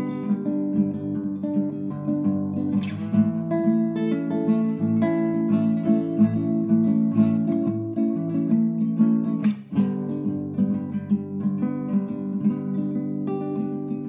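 Solo acoustic guitar: picked notes ringing over sustained bass notes, with a sharp strummed chord about three seconds in and another near ten seconds, followed by a momentary break before the playing resumes.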